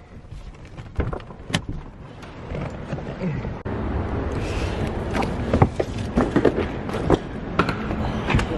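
Clicks of a car door handle and door, then steady outdoor noise comes in about three and a half seconds in. A string of knocks and clunks follows as luggage is handled in the car's rear cargo area.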